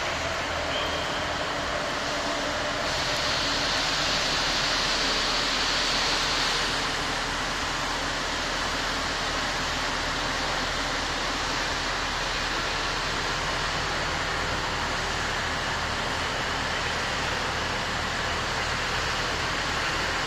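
Rail vehicle running: a steady rumble with a low hum under a hiss. The hiss grows louder for a few seconds about three seconds in, then settles back.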